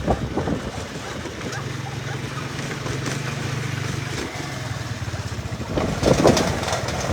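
A vehicle engine running with a steady low hum, which breaks off briefly partway through.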